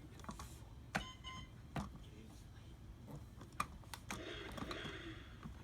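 A few sharp clicks or taps, spread over several seconds, with a short beep-like tone about a second in and a low, noisy stretch near the end.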